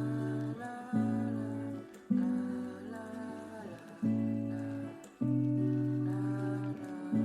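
Background instrumental music: sustained chords over a low bass note, each new chord starting sharply every second or two.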